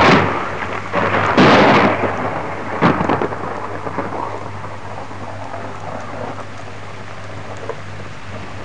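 Thunder cracking three times in the first few seconds, over steady heavy rain that continues afterwards.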